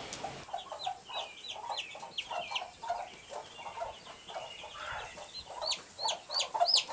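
Chick giving repeated high-pitched chirping distress peeps, louder and faster in the last two seconds, over chickens clucking. It is the distress call that brings a hen to the rescue.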